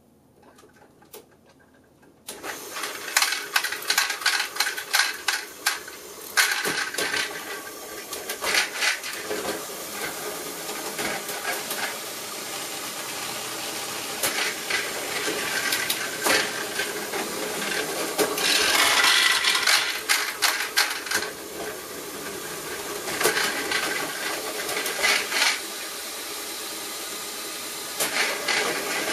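Motorised Lego train wagons and Technic mechanisms running on plastic Lego track through a double-crossover switch: a steady mechanical running sound full of plastic clicks and clatters, starting about two seconds in and swelling louder at times.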